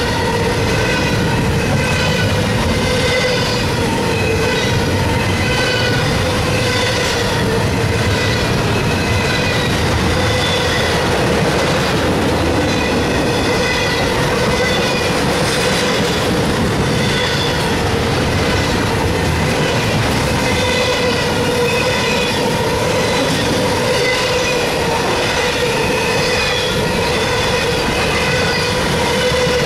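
Double-stack intermodal freight cars rolling past close by: a steady rumble of steel wheels on rail, with the wheels squealing in a held tone and higher wavering whines over it.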